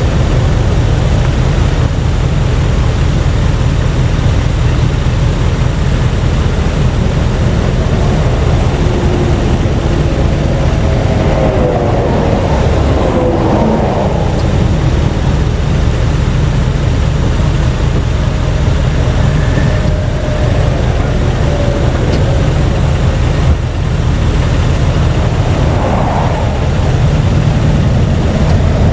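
Steady low rumble of vehicle and road noise, with faint wavering tones rising and falling about halfway through and again near the end.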